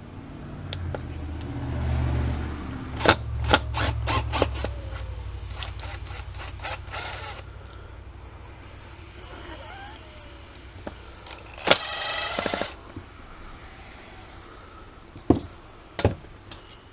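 Small metal parts and hand tools clicking and clattering as the float bowl is taken off a Mikuni motorcycle carburetor: a quick run of sharp clicks a few seconds in, a brief harsh scrape about twelve seconds in, and a few more clicks near the end, over a low hum.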